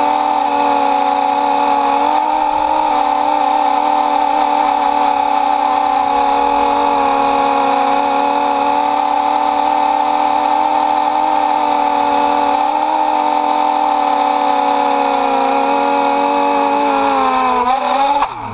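Drone's electric motors and propellers whining steadily in flight, picked up by the camera on board, a hum of several tones that shift slightly in pitch. Near the end the pitch falls and the sound drops as the drone sets down on the grass.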